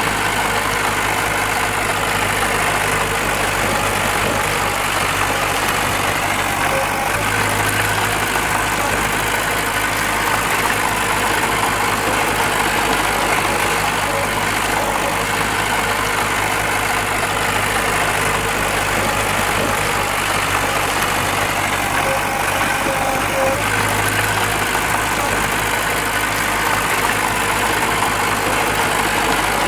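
Diesel engine of heavy earthmoving machinery running steadily, with slight changes in its note about seven seconds in and again near the end.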